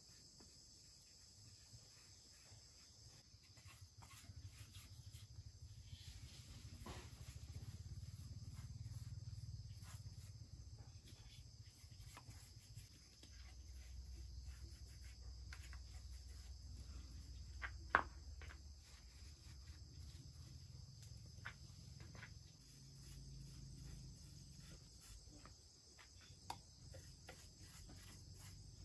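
Faint, steady high-pitched insect chorus, with scattered quiet taps and knocks and one sharper click about two-thirds of the way through.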